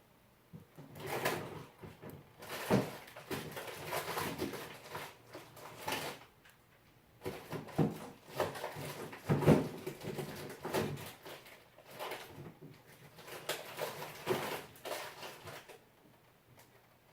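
Kitchen handling noises: irregular knocks, clicks and rustles of things being moved and handled, coming in clusters with short pauses.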